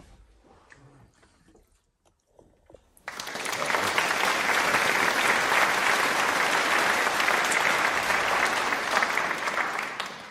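Faint small noises, then about three seconds in loud applause starts suddenly, holds steady, and cuts off abruptly at the end.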